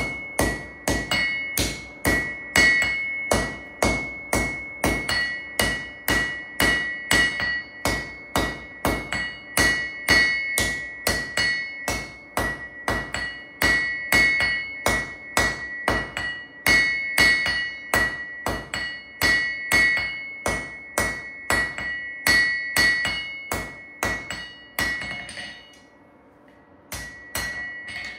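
Hand hammer forging a red-hot C70 carbon-steel knife blade on an anvil: steady blows about two a second, each with a high ringing note from the anvil. The hammering stops a few seconds before the end, followed by a couple of light clinks.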